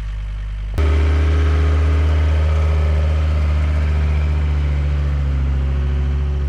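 Excavator's diesel engine running steadily, jumping abruptly louder just under a second in and then holding a deep, even hum.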